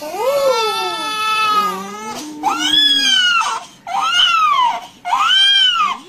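Newborn baby crying: four loud wails, each rising and then falling in pitch, with short pauses for breath between them.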